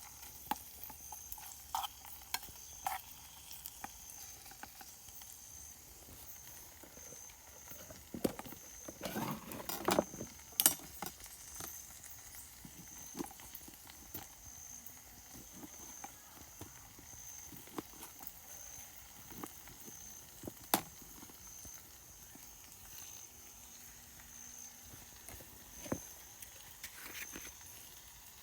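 Food sizzling in a pan over a campfire, with a utensil knocking and scraping against the pan now and then, busiest about nine seconds in. A high, pulsing tone sounds in the background.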